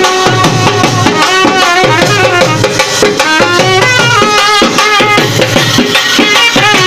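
Live band music: a trumpet playing an ornamented folk melody with bending notes, over the steady beat of a dhol barrel drum and a smaller snare-type drum.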